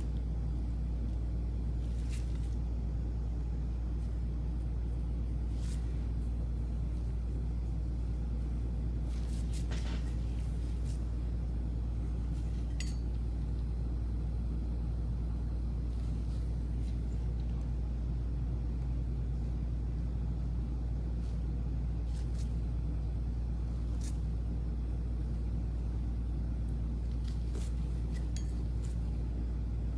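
Steady low hum with a few faint, light clicks scattered through it.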